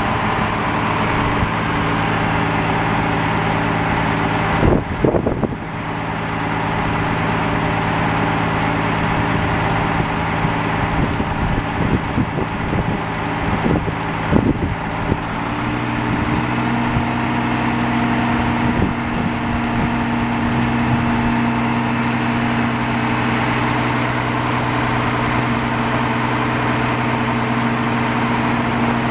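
Caterpillar C12 diesel engine of a Kenworth T800B dump truck idling steadily, its note shifting to a different steady pitch about halfway through. A few brief knocks sound in the first half.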